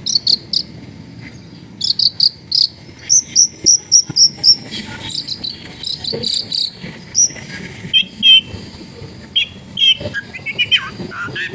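Long-tailed shrike singing: runs of short, sharp, high-pitched shot notes in quick succession, turning to lower, twisting chattering notes over the last few seconds.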